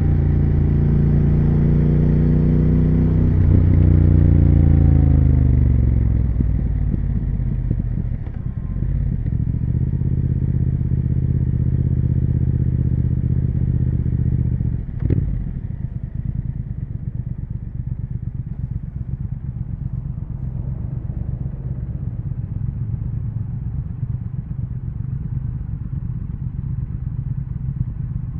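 2020 Triumph Speed Twin 1200's parallel-twin engine running through its exhaust. It holds a steady note, then falls in pitch as the bike slows and settles into a lower, steady note. About halfway through there is a single knock, after which the engine keeps on as a quieter, lumpy low rumble like an idle.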